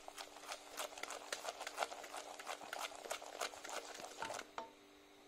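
Wooden spoon stirring bubbling caramel in a stainless steel pot: a quick, irregular run of knocks and scrapes against the pot, stopping about four and a half seconds in. The sugar syrup has just turned amber and is ready for the cream.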